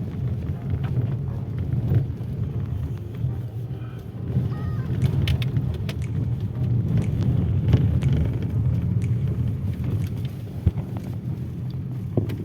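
Vehicle driving over a rough, broken road: a steady low rumble with scattered knocks and rattles.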